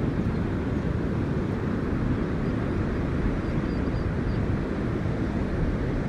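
Wind buffeting the microphone outdoors: a steady, low, fluttering rumble.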